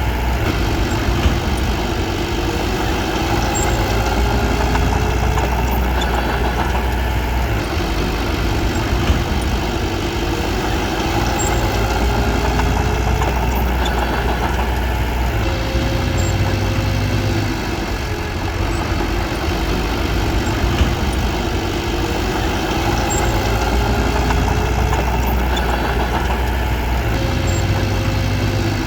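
Crawler bulldozer's diesel engine running steadily, its low drone swelling and easing as the load changes. There are a few brief clanks, about a second in, near the middle and about two-thirds through.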